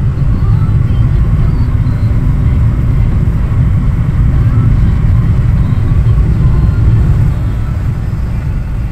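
Steady low road and engine rumble of a moving car, heard from inside the cabin, easing a little about seven seconds in.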